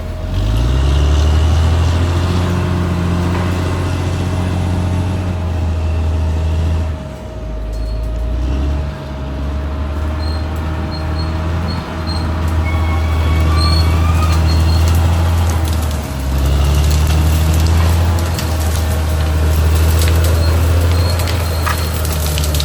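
Caterpillar D6R XL bulldozer's diesel engine working, revving up right at the start, then running heavily with brief drops in engine note about a third of the way in and again past the middle. A steady whine sits above the engine throughout.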